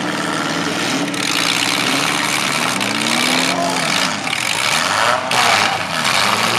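Several demolition derby compact cars' engines running and revving over a loud, continuous din, their pitch rising and falling as the cars accelerate and back off.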